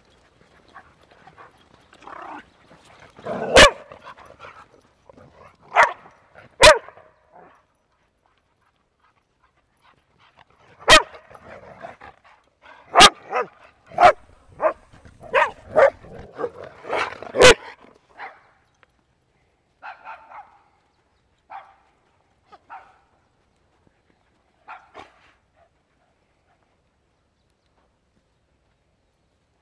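Dogs barking during play: a cluster of sharp barks a few seconds in, a longer run of loud barks from about eleven to eighteen seconds in, then a few quieter barks later on.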